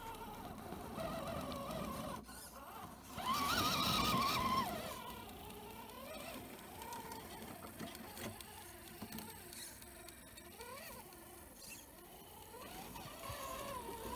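Electric drive motor and gearbox of a Vaterra Ascender RC rock crawler whining as it climbs over rocks, the pitch rising and falling with the throttle. It is loudest about three to four seconds in.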